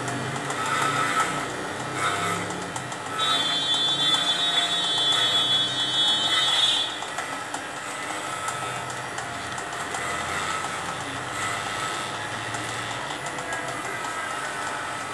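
Corded electric dog clipper running with a steady buzz as it shaves through a St. Bernard's long coat. From about three to seven seconds in, a louder high-pitched tone sounds over the buzz.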